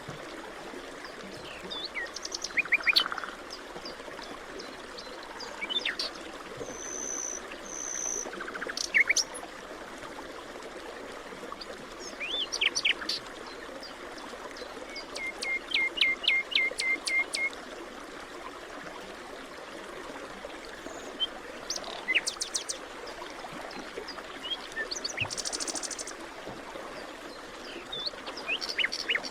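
Forest ambience: several songbirds calling and chirping in short phrases, including a quick run of about eight rapid notes midway, over a steady soft background hiss, perhaps distant running water.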